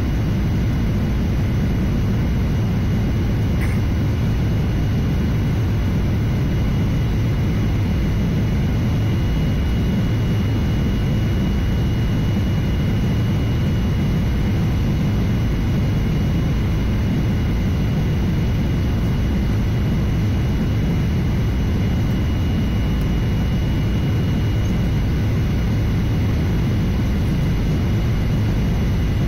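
Steady cabin noise inside a Boeing 737-800 on approach: a constant low rumble of airflow over the fuselage and the CFM56 turbofan engines, with a faint, steady high whine.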